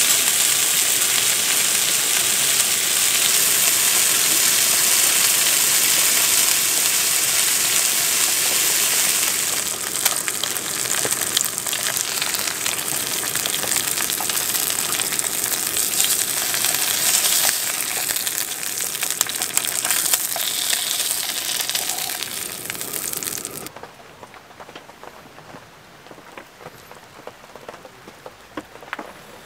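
Pork belly frying in a pan: a dense sizzle of hot fat, turning crackly with many small pops about ten seconds in. It cuts off sharply a few seconds before the end, leaving a much quieter light patter.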